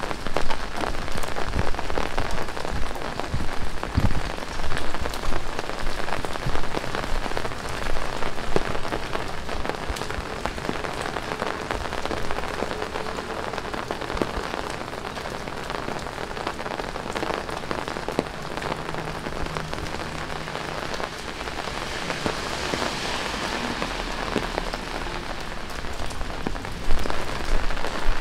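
Heavy rain pouring down: a dense hiss with many close drops spattering. It eases a little through the middle and picks up again near the end.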